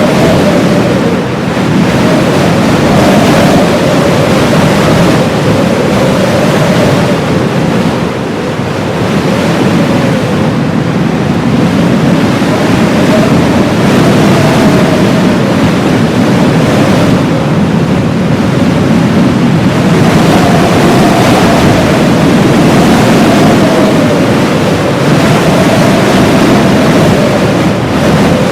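Heavy blizzard wind blowing without a break, with a howling tone that wavers up and down in pitch and swells and fades every few seconds.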